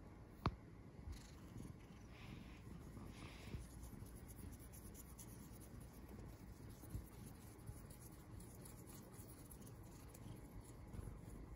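Domestic cat purring faintly as it is petted, a low steady rumble. A single sharp click sounds about half a second in.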